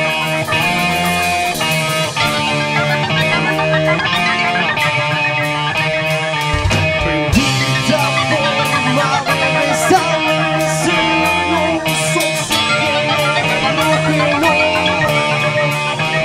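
Live rock band playing an instrumental passage: electric guitars over bass and drums, at a steady, loud level.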